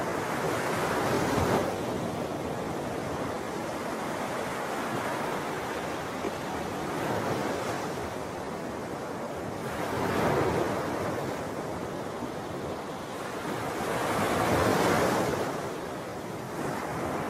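Wind blowing across a shallow lagoon, a steady rushing noise that swells in gusts about a second in, around ten seconds in and around fifteen seconds in. No flamingo calls are heard.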